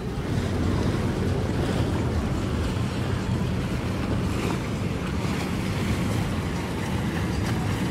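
Boat engines running with a steady low hum, under wind buffeting the microphone and the wash of water.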